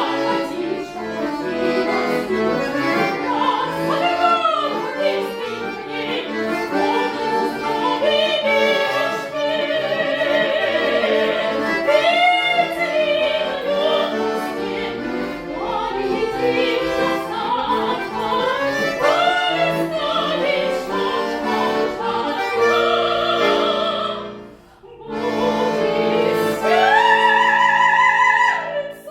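Classically trained singer with wide vibrato, accompanied by a bayan (button accordion) holding sustained chords. The music breaks off briefly near the end, then the voice takes up a long high held note.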